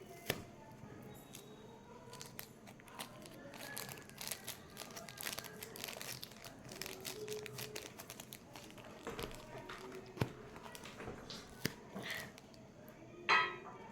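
Faint, irregular small clicks and rustles of hands stuffing small pieces of sponge into a homemade squishy toy.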